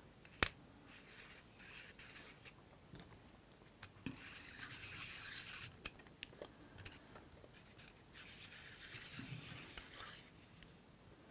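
Faint handling of the plastic front ring of a Canon EF 70-200mm f/4L IS lens as it is fitted back on: a sharp click about half a second in, then light ticks and soft scraping and rubbing, worked partly with a thin wooden stick, the longest stretch about four to six seconds in.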